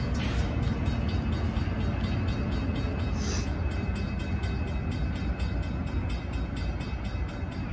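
Diesel locomotive 3517 running at low speed, a steady low rumble with an even ticking about four times a second. A short high hiss sounds a little after three seconds in.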